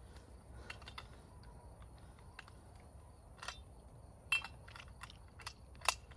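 A rifle being handled: a string of short, sharp metallic clicks and clacks, the loudest a little past four seconds in and again just before the end, with smaller taps between.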